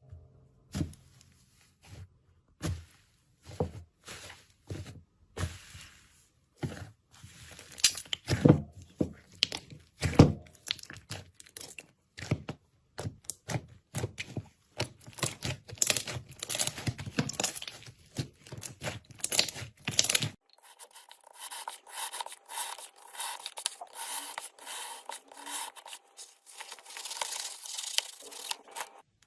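Slime being squeezed and pulled by hand, giving irregular crackling and popping in short bursts with brief pauses between. About two-thirds through it turns into a denser, lighter crackle.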